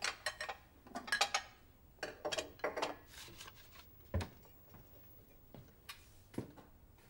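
Paper rustling as envelopes and a card are handled on a worktop, mixed with light clicks and clinks, then a single low thump about four seconds in and a softer knock near the end.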